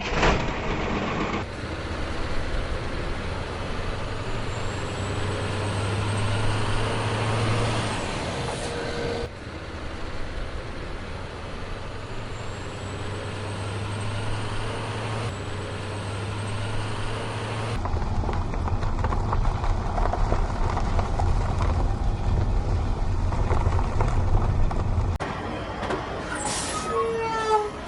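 Heavy truck engine sounds running, cut together from several pieces with abrupt changes, ending with a quick series of chirps.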